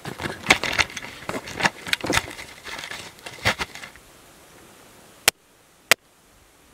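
Handling noise of a camera being set on the ground: rustling and crunching of dry brush and gravel with scattered clicks. It then drops to near quiet, broken by two sharp clicks about half a second apart near the end.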